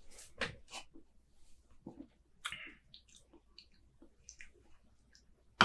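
Quiet lip smacks and mouth noises from tasting a sip of beer, with small clicks and taps as an aluminium beer can is picked up and handled. A sharper knock near the end.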